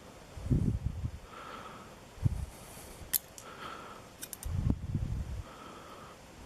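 Breathing through the nose close to the microphone, a low rush about every two seconds, alternating with a softer in-breath. A few faint light metal clicks come from pick work on the pins of a pin-tumbler lock plug.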